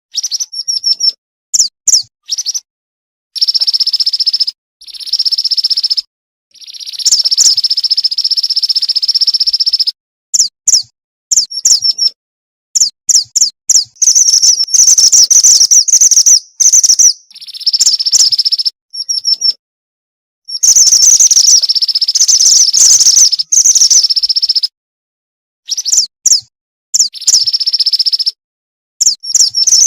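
Female mantenan gunung bird calling: bursts of loud, high chirps and longer buzzy trills. It is used as a lure call to draw males. The calls break off abruptly into short stretches of dead silence several times, as an edited loop does.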